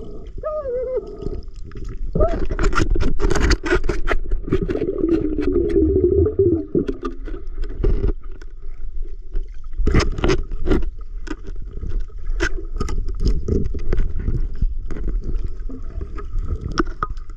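Muffled underwater sound through a submerged camera: a steady low rumble with many irregular sharp clicks and knocks, heaviest from about two seconds in, as hands and gear scrape and bump among the rocks.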